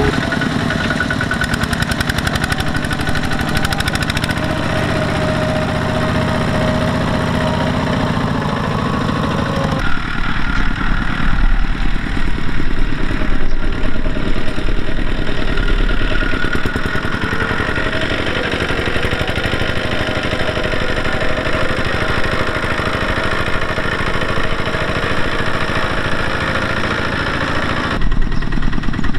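The single-cylinder diesel engine of a two-wheel walking tractor running steadily as it pulls a trailer, a rapid even pulsing. The sound changes abruptly about a third of the way in and again near the end.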